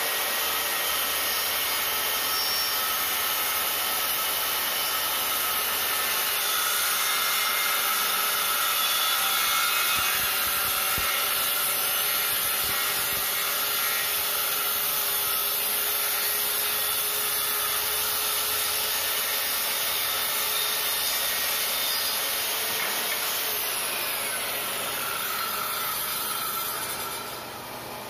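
SKIL circular saw ripping a plywood board lengthwise, the blade cutting steadily through the wood, with a vacuum drawing the dust off through a hose on the saw's dust port. Near the end a falling whine sweeps down and the noise eases off.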